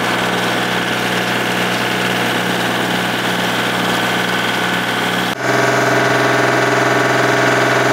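Small tractor's engine running steadily while working a snowblower through deep snow. About five seconds in the engine tone changes abruptly to a different steady pitch.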